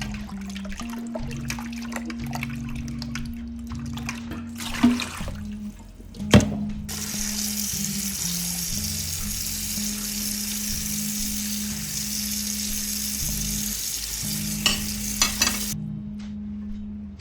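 Background guitar music with a few sharp knocks, then a steady hiss for about nine seconds in the middle that stops suddenly.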